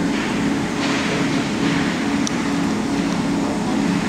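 Ice rink ambience during play: a steady low mechanical hum, with skate blades scraping across the ice in short swells and a faint click a little past two seconds in.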